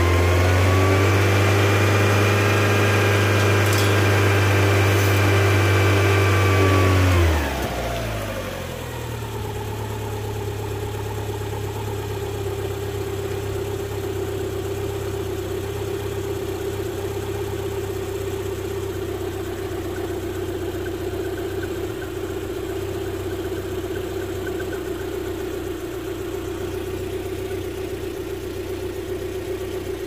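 Land Rover Freelander 1.8-litre four-cylinder petrol engine held at raised revs, then dropping back to idle about seven seconds in and idling steadily. The engine runs lumpy at idle, which the technician puts down to an erratic camshaft position sensor signal making the ECU group-fire the injectors.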